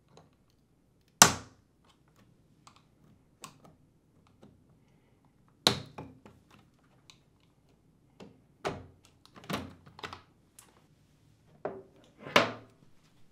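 Sharp plastic clicks and knocks as a dishwasher control panel's plastic retaining tabs are pressed free with a flat-head screwdriver and the panels are handled. There is a loud knock about a second in, another just before the sixth second, and a quicker run of knocks near the end.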